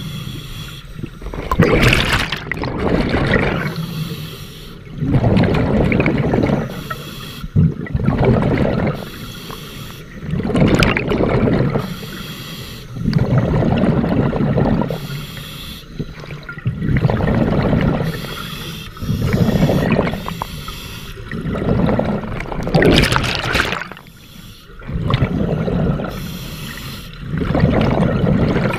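Scuba diver breathing through a regulator underwater: a hissing inhale, then a bubbling, gurgling exhale, repeating in a steady rhythm of about one breath every three seconds.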